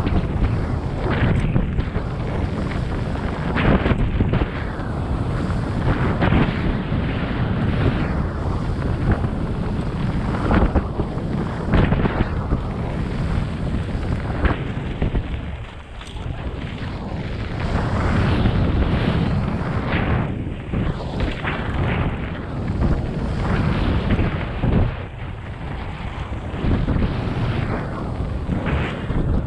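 Wind buffeting the microphone with a heavy, uneven rumble that surges and eases in gusts, briefly dropping away about sixteen seconds in.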